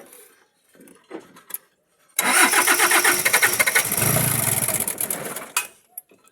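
Diesel engine being cranked on the starter for about three and a half seconds, then cut off abruptly; the engine is hard to start.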